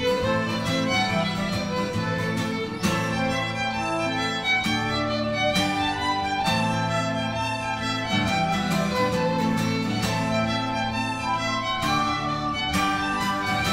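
Irish jig played on fiddle with guitar accompaniment over a steady bass line.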